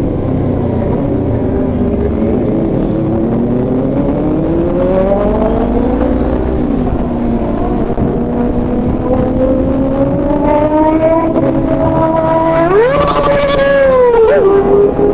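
Kawasaki Ninja sportbike engines on the move in a group ride, the engine note rising and falling with the throttle. Near the end, one engine revs sharply upward and then drops back over a second or two.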